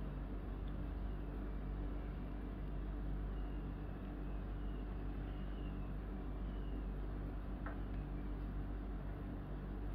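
A steady low mechanical hum with several unchanging pitched layers, and a single light click about three quarters of the way through.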